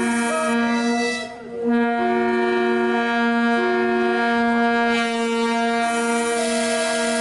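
Diesel locomotive air horns sounding long, steady blasts in several tones at once, cutting out briefly about a second in, with higher notes switching in and out over a held low note. A rush of hiss joins for a couple of seconds near the end.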